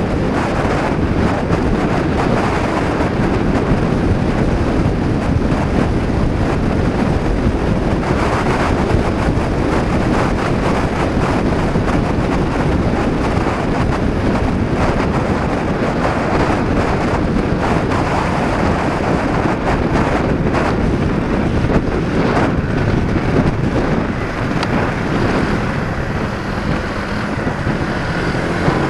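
Heavy wind noise buffeting the action camera's microphone while riding a Honda PCX 125 scooter, with its single-cylinder four-stroke engine running underneath. Near the end the wind eases slightly and a steadier engine note shows through.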